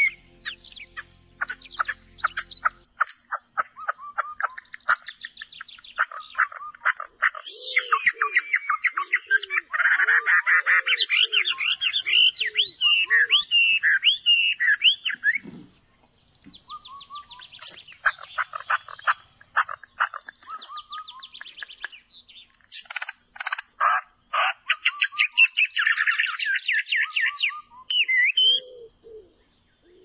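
Several birds singing over one another, with fast trills, clear whistled phrases and chirps, and short low repeated calls in the middle and again near the end. Soft instrumental music fades out in the first few seconds.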